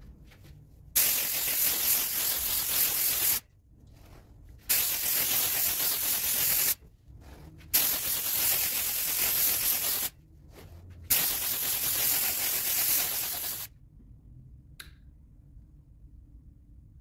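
Four long bursts of spray, each about two to two and a half seconds and starting abruptly, as finish is sprayed onto a turned wooden lamp base. A faint click comes a second after the last burst.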